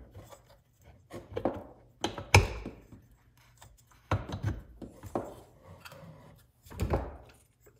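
Hands fitting a metal flywheel back onto a chainsaw crankshaft on a workbench: a string of separate knocks and clunks of metal parts being handled, with some rubbing. The loudest knock comes about two and a half seconds in.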